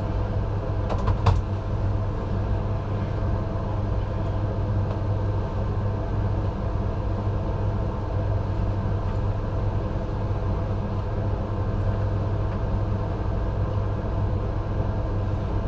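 Steady low rumble of an ambulance, engine and running noise heard from inside the patient compartment, with a couple of sharp clicks about a second in.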